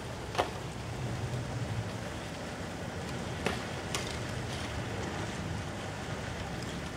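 Ice drift on the Danube: a steady hissing rush from floes floating downriver, mixed with wind on the microphone. A few short sharp clicks come about half a second, three and a half and four seconds in.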